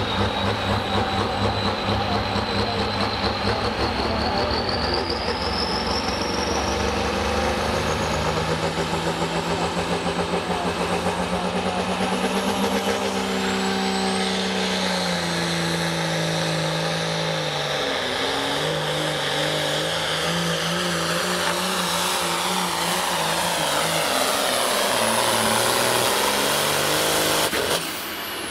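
Turbocharged 466-cubic-inch diesel engine of a Hot Farm class pulling tractor running hard under load while pulling the weight-transfer sled. A high whine rises in pitch over the first several seconds as the turbocharger spools up.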